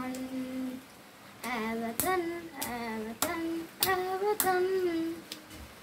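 A boy singing or chanting in a held, sung voice, with long notes and glides and a short pause about a second in. From about two seconds in, sharp claps come roughly every half-second to second between his phrases.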